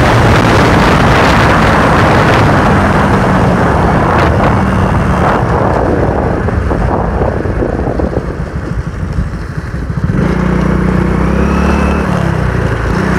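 Motorcycle engine running while riding, with wind rushing over the microphone in the first half; the level dips briefly around eight seconds in as the rider eases off, then the engine note settles into a steady hum.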